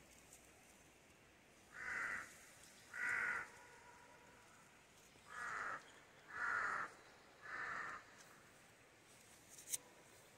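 A crow cawing five times, two caws and then three, each about half a second long. A short click comes near the end.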